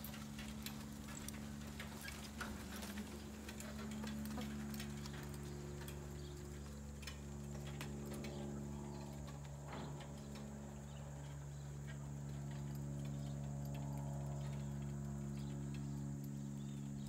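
A horse walking in harness and pulling a two-wheeled cart, heard from a distance as faint, irregular ticks and clicks, over a steady low hum.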